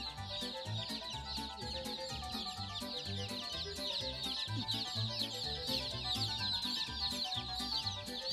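A brooder full of Cornish Cross meat chicks peeping nonstop: many overlapping short, high, falling chirps.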